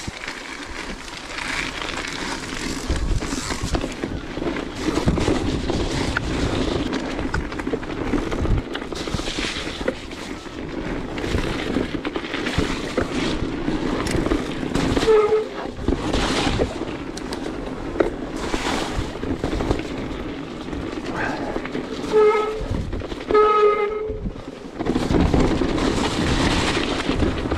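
Electric mountain bike descending a wet, muddy gravel trail: tyres rumbling over the rough ground, the bike rattling, and wind on the microphone. The brakes give short high squeals about halfway through and twice near the end.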